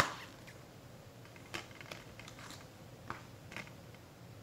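Plastic Blu-ray case snapping open with one sharp click, followed by several lighter plastic clicks and taps as the open case is handled.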